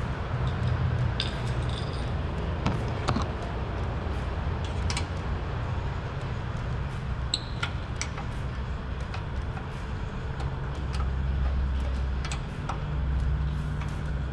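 Scattered light clicks and taps of a screwdriver and fittings on the fuel pump unit of a scooter fuel tank, over a steady low hum.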